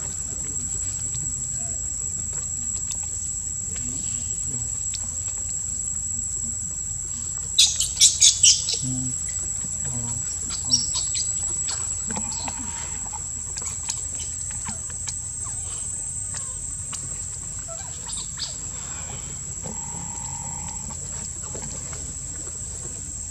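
Steady high-pitched insect drone, with a brief burst of loud chirps about eight seconds in and a few fainter chirps a couple of seconds later.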